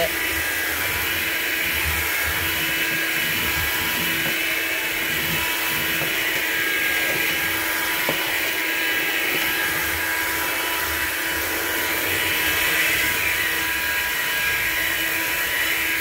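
Hoover Linx cordless stick vacuum running steadily while pushed over a hard floor: an even motor whine over rushing air.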